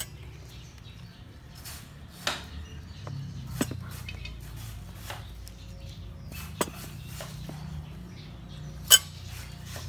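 A glass sauce bottle and a spoon being handled on a wooden table: four scattered sharp clinks and knocks, the loudest a little before the end, over a steady low hum.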